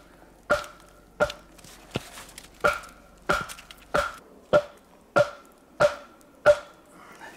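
A log used as a mallet strikes the top of a pointed dry spruce pole again and again, driving it into the ground. About ten hollow wooden knocks come at an even pace, a little faster than one a second, each with a short pitched ring from the pole.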